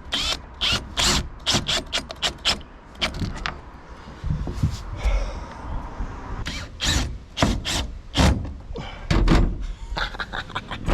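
Irregular knocks, clicks and a few heavier thumps as a roof vent fan is worked and screwed into its opening in a van's roof.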